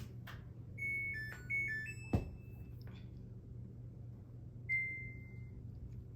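Samsung FlexWash washing machine's control panel sounding: a short electronic tune of several stepped tones, a sharp click, then a few seconds later one longer single beep, over a steady low hum.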